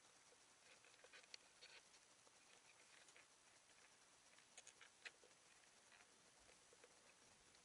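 Near silence underwater: a faint hiss with scattered small clicks and ticks, in small clusters about a second in and again about five seconds in.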